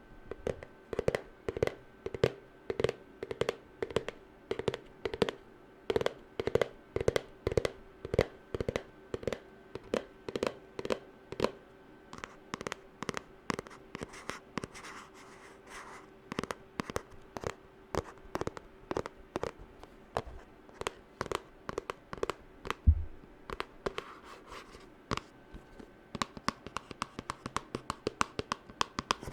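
Fingernails tapping on a hard object, steady clicks about two a second, each with a short ringing tone, with some scratching about halfway through. A single low thump comes near the three-quarter mark, and the taps grow quicker and denser near the end.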